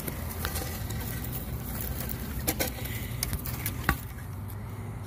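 Footsteps on dry, cracked dirt, with the phone rubbing and knocking in the hand and a few sharp clicks, over a steady low rumble.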